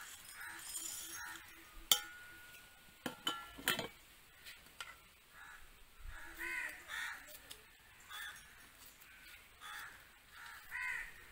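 Clinks of garlic cloves and peppercorns dropped into a brass mortar, the loudest a sharp ringing clink about two seconds in, with a few more knocks soon after. Crows caw repeatedly in the background, several times in the second half.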